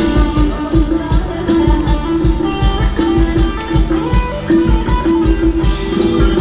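Live Thai ramwong band music played over loudspeakers, with guitar over a steady drum beat.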